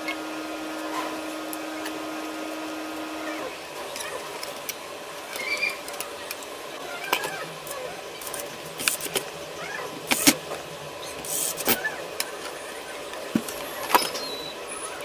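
Plastic camcorder housing parts being handled and fitted together on a bench: irregular small clicks and knocks, a few sharper ones. A steady hum in the background stops a few seconds in.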